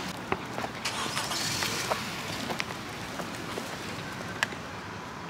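Outdoor background noise of distant traffic, with a few scattered light clicks and a brief hiss about a second in.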